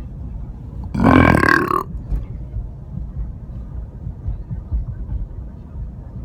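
A single loud human burp lasting just under a second, starting about a second in.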